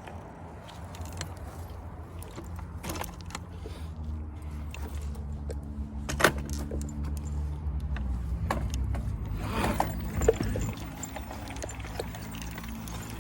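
Electric bike motor running with a low hum, overlaid by scattered clicks and rattling, and two sharp knocks about six and ten seconds in. This is the loud noise the bike has developed since being ridden on trails; its cause is unknown to the owner.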